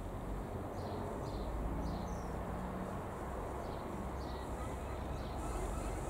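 Distant drone of a Robin HR200-160's single four-cylinder piston engine passing overhead: a steady low rumble. Birds give short, high, falling chirps now and then over it.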